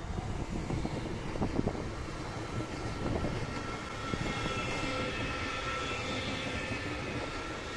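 ICE high-speed electric train passing at moderate speed: a steady rumble of wheels on rails with a thin high whine over it, growing slightly louder about four seconds in as the carriages go by.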